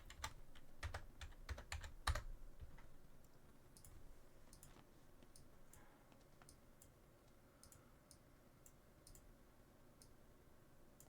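Faint clicking at a computer's keys: a quick run of clicks in the first two seconds, then scattered single clicks over low room tone.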